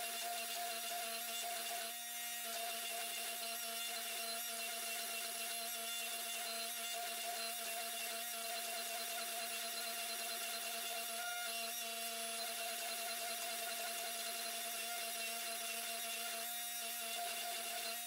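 Hydraulic forging press's electric motor and pump running with a steady hum while a hot damascus billet is squeezed between its dies.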